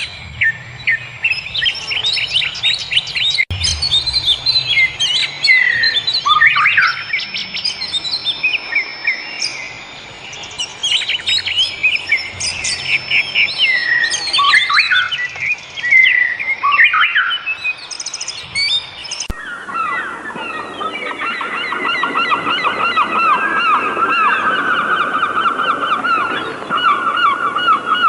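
Several wild birds singing, with quick chirps, trills and sweeping whistled notes overlapping. About two-thirds of the way through the sound cuts abruptly to a different recording: a dense chorus of rapidly repeated calls from a flock of birds.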